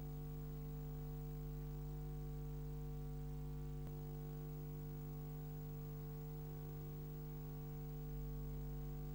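Steady low electrical hum with a faint hiss under it, and a single click about four seconds in.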